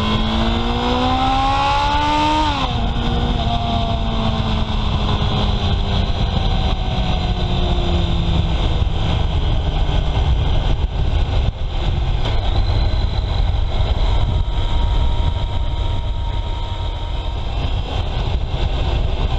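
Honda CB750 Sevenfifty's air-cooled inline-four engine pulling hard with its pitch rising for about two and a half seconds, then the throttle is shut and the engine note drops and falls away slowly as the bike slows. A steady low rumble runs underneath throughout.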